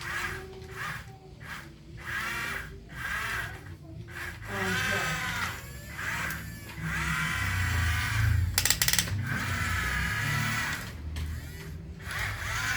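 Children's voices, drawn-out and high, over a low hum, with a short rattle about eight and a half seconds in.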